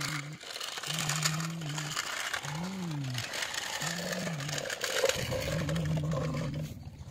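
Plastic wheels of a train of toy vehicles rolling and rattling over rough concrete. A low hum comes and goes in about four short stretches, one of them rising and falling.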